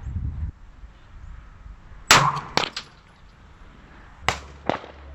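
Gunshots at an outdoor range, each ringing out with an echo: a loud one about two seconds in, a second half a second later, and two weaker ones near the end. A low wind rumble sits under the opening moment.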